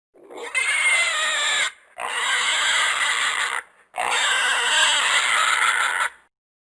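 Horse whinnying three times in quick succession, each call about one and a half to two seconds long with a high, wavering pitch.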